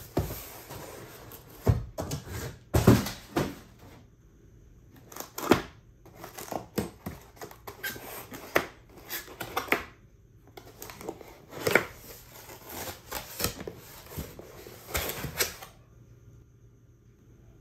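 Cardboard shipping box being handled and opened: irregular scrapes, rubs and knocks of cardboard flaps and tabs being pulled and folded back. The handling stops about two seconds before the end.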